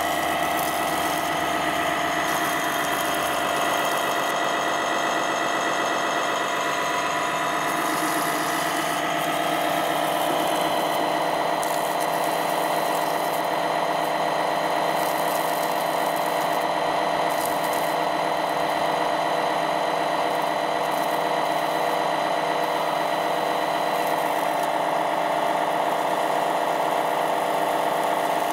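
Electric water pump on a radio-controlled model fire truck whining steadily while it drives a jet of water from the roof monitor. Its tone shifts slightly about ten seconds in.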